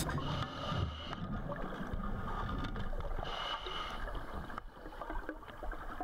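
Underwater ambience picked up by a dive camera: a low, even rumble and hiss of water.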